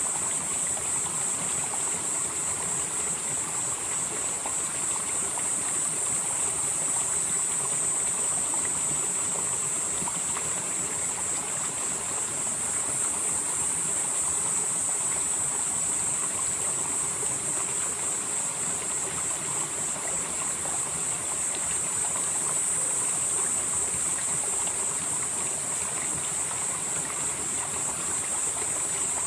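A mountain stream flowing steadily through a valley, with a continuous high-pitched hiss over the water that slowly swells and fades.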